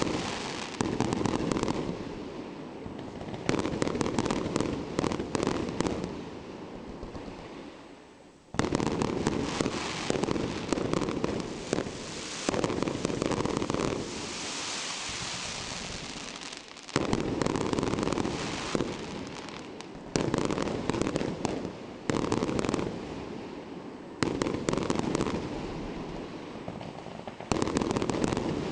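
Fireworks shells bursting close overhead, one boom after another every two to three seconds, each followed by crackling as the stars fall. A short lull comes about a third of the way in, and a longer, brighter crackling hiss comes in the middle.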